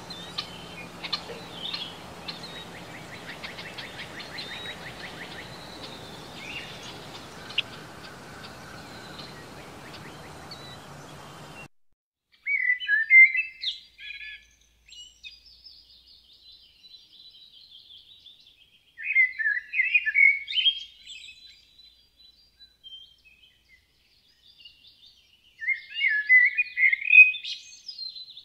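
Bird chirps and a trill over a steady outdoor hiss, cutting off suddenly about a third of the way in. Then a male Eurasian blackbird (Turdus merula) sings three fluty, warbling phrases about six seconds apart, each ending in higher twittering.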